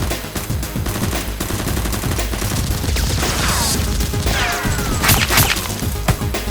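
Rapid gunfire, many shots in quick succession, with a few falling whistling tones about halfway through and a louder flurry of shots about five seconds in.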